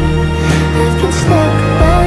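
Music from a song playlist: sustained chords over a bass line that changes note every half second or so, with a held melody line sliding in about midway.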